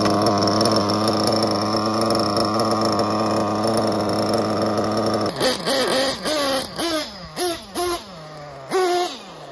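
Picco nitro engine in a Kyosho 1/8 nitro truggy idling with a steady, even purr. About five seconds in it is given short bursts of throttle, the pitch jumping up and falling away several times as the truck drives off.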